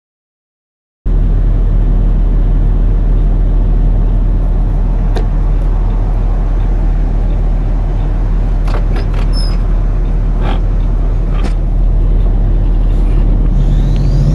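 A semi truck's diesel engine running steadily under load, heard inside the cab. It cuts in about a second in after a brief silence, with a few faint clicks over the drone.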